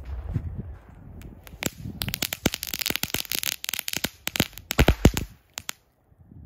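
Spy Bomb firecrackers going off: about two seconds of fizzing and crackling, then two loud sharp bangs close together a little before the end.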